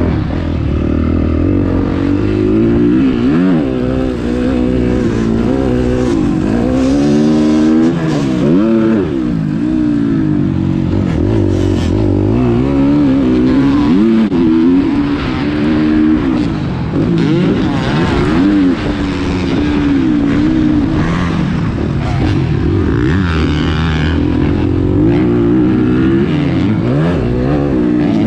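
Motocross dirt bike engine being ridden hard, the revs rising and falling every second or two with the throttle and gear changes.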